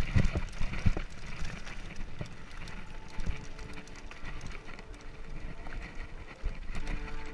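Mountain bike riding fast down a dirt singletrack: the tyres rumble over the trail and the bike knocks and rattles, hardest in the first second.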